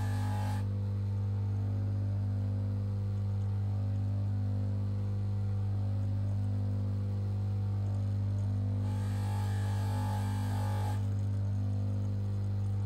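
Bench polishing motor running with a steady electric hum as it spins a buffing wheel. There is a hiss from the steel watch case being buffed against the wheel at the start and again from about nine to eleven seconds in.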